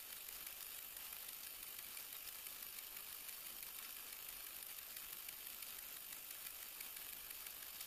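Faint steady hiss with a thin high-pitched whine, the background noise of the recording, with no distinct handling sounds standing out.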